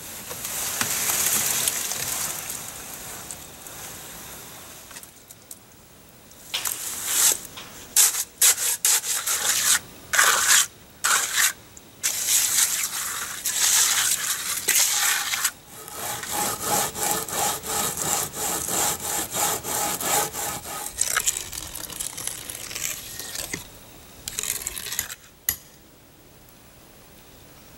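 Wet concrete sliding out of a wheelbarrow into a wooden form. It is followed by a hand trowel scraping and smoothing the wet concrete in long runs of repeated strokes. A few sharp taps come near the end, from a hammer knocking on the form.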